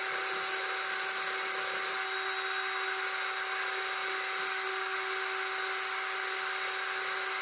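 Cordless drill running at a steady speed, a steady whine with hiss, its bare rubber sanding drum spinning a Linotype keyboard cam held against it to free the cam's gummed-up bearing.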